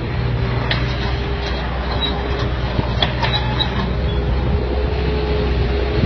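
A mini excavator's diesel engine running steadily, with a few faint clicks over it.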